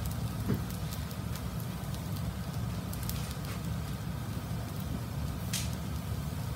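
Fried rice with vegetables and chicken fillet pieces crackling in a frying pan on a stove: scattered small pops over a steady low rumble.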